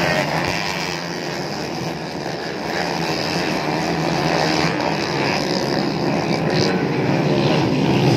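Many motocross dirt bikes running on the track at once, their engines blending into a steady, dense drone that grows gradually louder over the last few seconds.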